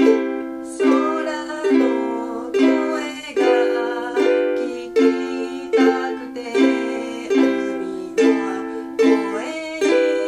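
Ukulele strummed in a steady rhythm, a strong strum about every 0.8 s, playing the chords C, G7, F, C and then Am, Em7, Dm, G7.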